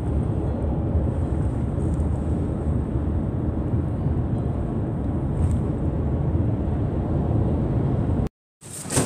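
Steady road and engine noise inside a Ford car's cabin cruising at motorway speed, a dense low rumble. It cuts off abruptly about eight seconds in.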